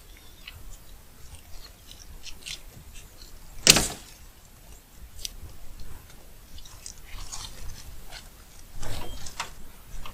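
Butyl tape being handled and worked around a sheet-metal seam: scattered crackles and clicks, with a short loud crackle about four seconds in and another louder rustling stretch near the end.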